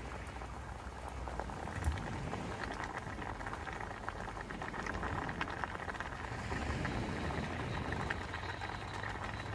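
Water boiling in a pot: a steady, dense bubbling full of small pops.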